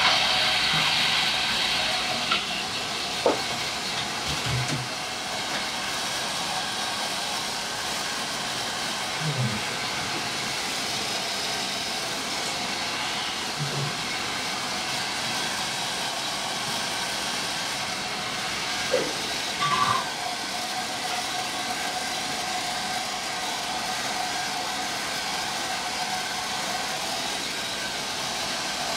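Hand-held hair dryer blowing steadily: a continuous hiss of air with a faint motor whine, and a few light clicks and knocks over it.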